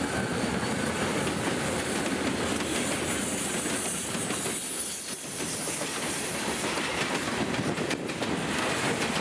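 Freight train rolling past at close range: boxcars and tank cars rumbling and rattling, their wheels clacking over the rail joints.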